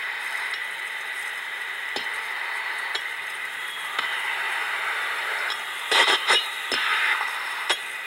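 Hissing, crackling audio output of an HP 4905A ultrasonic translator leak detector as its contact probe is drawn along the copper pipe bends of a nitrogen-charged AC coil, with clicks and scrapes where the probe touches the tubing. A louder crackling burst comes about six seconds in, and another sharp crackle near the end.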